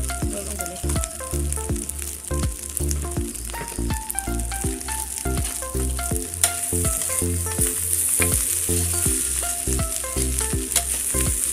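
Egg fried rice sizzling in a wok as a metal spatula stirs and tosses it, with light clicks and scrapes of the spatula against the pan. Background music with a melody and bass line plays along.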